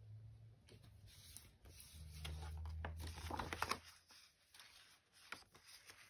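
Sheets of paper rustling, sliding and tapping as they are handled over a journal, busiest from about two to four seconds in, over a faint low hum.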